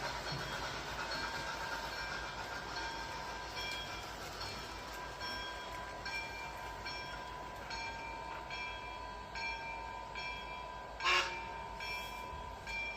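A train running, with a ringing that repeats about twice a second over a steady tone. A short loud blast, likely the horn, comes about eleven seconds in.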